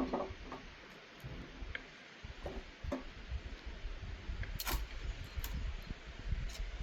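Scattered light clicks and knocks over a low rumble, the sharpest few coming near the end.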